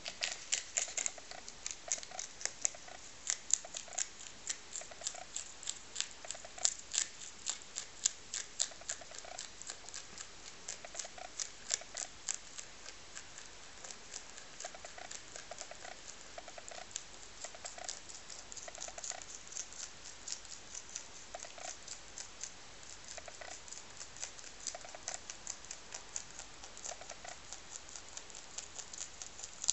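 Lop-eared rabbit chewing fresh dandelion leaves and stems: rapid, crisp crunching clicks, several a second, going on steadily.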